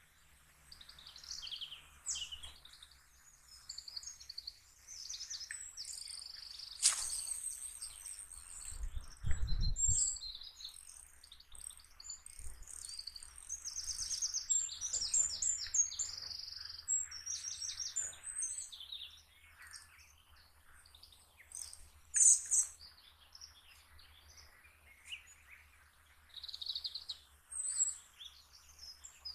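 Several songbirds singing and chirping, with quick trills and repeated high notes. A sharp click comes about seven seconds in, a brief low rumble about nine seconds in, and another sharp knock about twenty-two seconds in.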